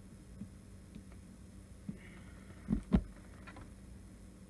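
A few faint ticks, then two short low knocks about a third of a second apart, about three seconds in.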